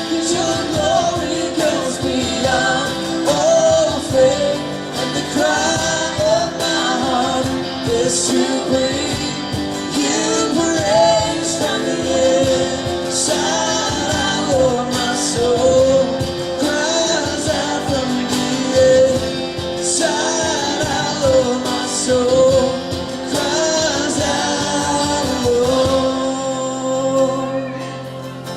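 Worship band music with drums, guitar and a sung melody without clear words. The drums drop out about two seconds before the end, leaving held chords.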